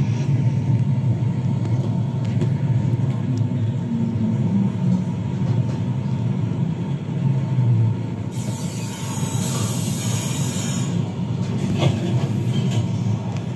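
Wooden toy train cars rolling along wooden track, a steady rumble. For about three seconds in the middle, a high hiss joins it.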